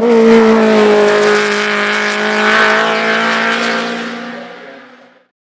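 Race car engine at high revs passing close by, its note dropping slightly in pitch as it goes past, then holding steady as the car pulls away and fades out.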